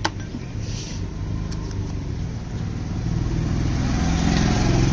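Yamaha motorcycle engine running on its rebuilt carburettor, getting louder over the last two seconds as the revs build. There is a sharp click right at the start.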